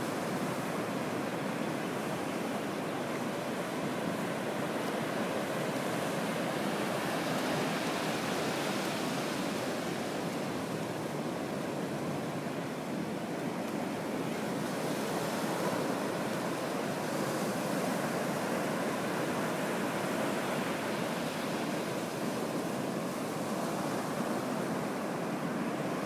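Ocean surf washing onto a beach: a steady rush of breaking waves that swells and eases every few seconds.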